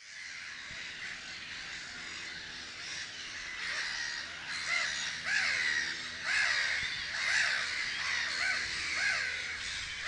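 Black-headed gulls calling: harsh, arched calls from several birds, over a steady background of more distant calls, growing busier from about four seconds in.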